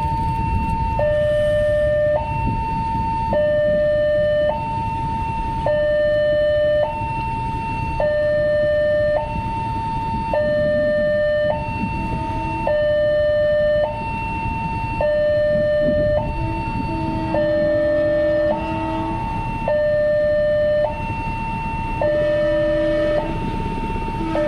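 Railway level-crossing warning bell: an electronic two-tone alarm alternates a higher and a lower tone, each held a little over a second, signalling that a train is approaching. A low rumble of waiting vehicles' engines runs underneath, and a deeper horn-like tone sounds twice in the second half.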